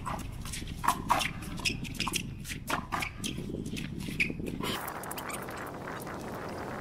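Racquetball rally on a concrete court: sharp pops of the ball off the racquet and the wall, and sneakers squeaking and scuffing on the concrete, over a steady low rumble. The hits stop after about four and a half seconds.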